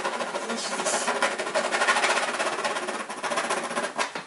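Graphite pencil hatching fast on a stretched canvas: a rapid, even run of scratchy back-and-forth strokes, many to the second, with a brief break near the end.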